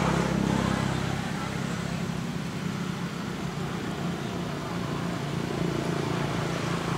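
Steady low engine hum over outdoor background noise.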